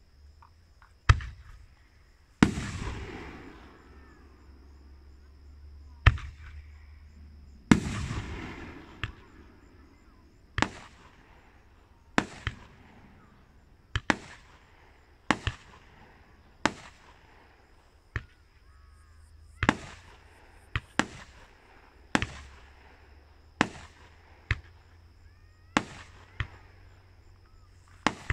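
Aerial firework shells bursting in a steady series of sharp bangs, about one every second or so. Two of the earlier bangs trail off in a long rolling rumble.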